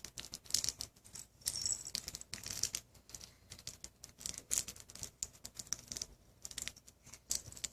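Rapid, irregular rustling and clicking of small things being handled close to the microphone.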